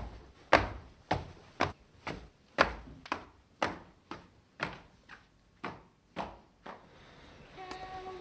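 Footsteps on a hard floor, about two steps a second at an even walking pace, growing fainter as the walker moves away.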